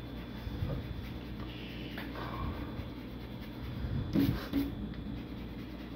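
Quick strokes of a drawing tool rubbing across a sheet of paper taped to a door. Two short, louder low sounds come about four seconds in.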